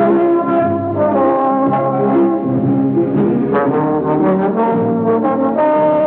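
Brass music playing: several instruments holding notes together in harmony, moving to new notes every half second or so.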